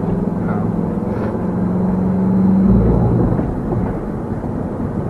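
Vehicle engine and road noise while driving, a steady low hum that swells to a peak about halfway and then eases off.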